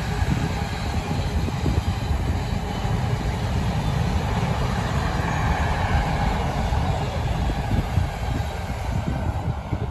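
Container freight train's wagons rolling past on the rails, a steady rumble of wheels on track that eases a little near the end as the last wagons go by.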